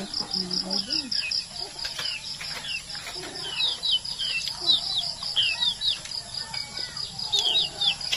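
Outdoor rural ambience: small birds giving short falling chirps, more often in the second half, over a high, steady pulsing trill of about six pulses a second from an insect.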